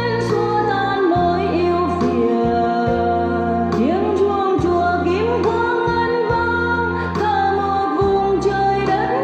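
Music: an instrumental passage of a Vietnamese Buddhist devotional song, with held bass notes, a melody that slides between pitches, and a light beat about once a second.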